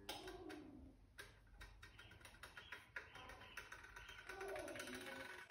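Near silence with faint music and a few soft ticks.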